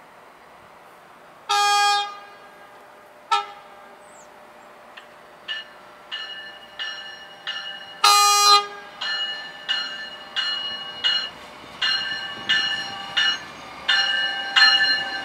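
NJ Transit River Line Stadler diesel light rail train approaching and sounding its horn: a long blast, a short toot, then another long blast about eight seconds in. Between the blasts its bell rings about one and a half times a second, growing louder as the train draws near, and a rumble builds near the end.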